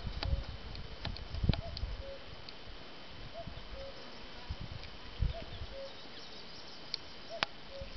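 A bird calling a low two-note call, a short arched note followed by a slightly lower flat one, repeated about every two seconds over faint outdoor hiss, with a few low thumps.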